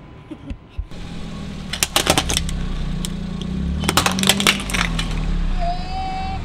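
A car tyre rolling slowly over an orange plastic toy and crushing it: two clusters of sharp plastic cracks and snaps about two seconds apart, over the low hum of the car's engine. A brief high tone sounds near the end.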